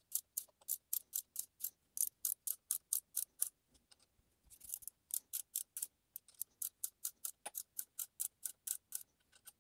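Ratchet of a torque wrench clicking in quick, even runs, about five clicks a second, as it turns down the screw of a valve spring compressor and compresses the valve spring; the clicking pauses briefly a few seconds in, then resumes.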